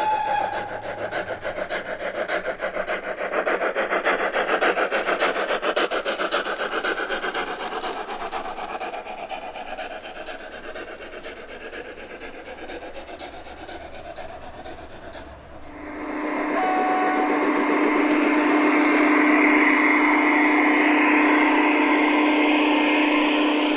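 G-scale model trains running on garden track. First a model steam locomotive hauling green coaches passes with a fast, rasping rattle that slowly fades. About sixteen seconds in the sound changes suddenly to a yellow model diesel locomotive running past with a steady humming drone.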